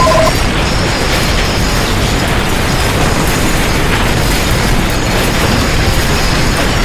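Loud continuous rumbling, rattling noise of earthquake shaking. A two-tone electronic warning beep cuts off just after the start.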